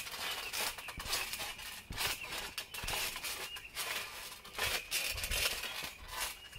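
Socked feet stepping and shuffling across a trampoline mat: irregular soft thumps with rustling and clicks.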